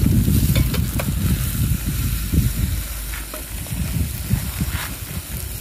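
Camp dinner of skirt steak sizzling as it cooks, a continuous hiss with a few scattered crackles. A heavy low rumble runs underneath, loudest in the first second or so.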